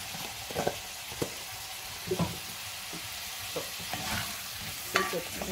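Diced liver and sliced onions sizzling in oil in a pot while a spatula stirs them, scraping and knocking against the pot about six times.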